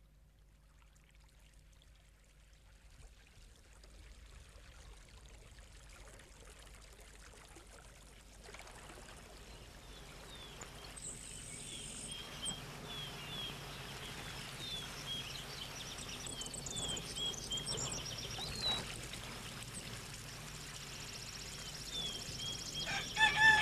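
Outdoor nature ambience fading in: an even hiss with birds chirping in short, falling notes from about halfway. A louder, slightly falling bird call comes near the end.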